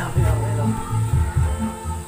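Music with a heavy, repeating bass beat and a melody line above it.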